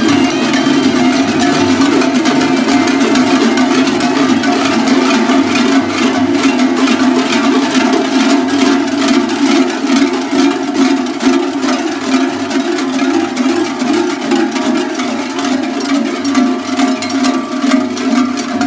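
Many large cowbells, strapped to costumed carnival walkers, clanging steadily as they walk.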